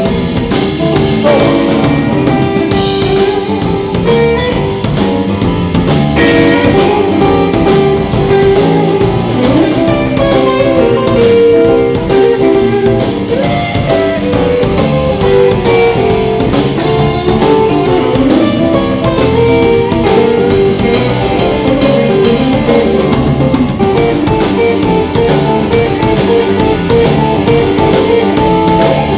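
Live roots band playing an instrumental break between sung verses, the band continuing without vocals.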